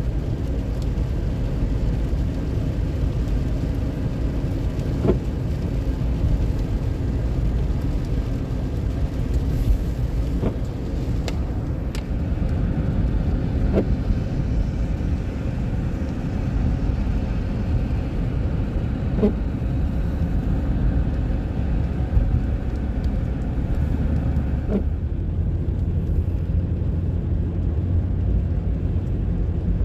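Road noise inside a car driving on a wet highway: a steady low rumble of engine and tyres, with a few faint knocks now and then. About 25 seconds in, the higher hiss thins out and the low rumble grows.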